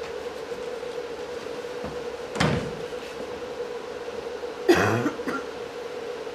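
A man's two short coughing gasps: a sharp one about two and a half seconds in, then a longer, pitched one near five seconds. A steady electrical hum runs under them.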